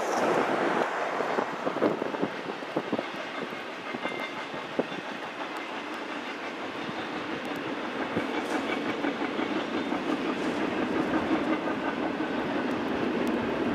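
Double-stack intermodal container cars of a long freight train rolling past, a steady rumble of wheels on rail with scattered clicks, growing a little louder in the second half.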